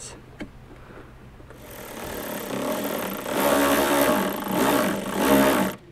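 A power tool's motor whirring in spurts, its pitch rising and falling several times as it speeds up and slows, loudest in the second half and cutting off suddenly near the end.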